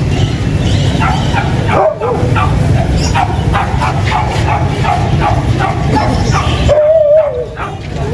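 A dog yapping rapidly, about three short yaps a second, with two drawn-out whines, a short one about two seconds in and a longer one near the end, over a steady low background rumble.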